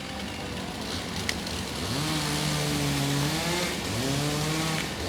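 Two-stroke chainsaw engine revved up quickly to high speed, held there for a second or so, then let off and revved up again about 4 seconds in.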